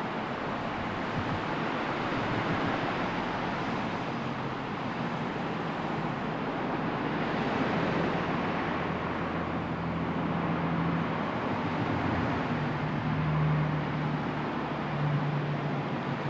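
Wind and sea surf, a steady rushing noise, with a low hum swelling now and then in the second half.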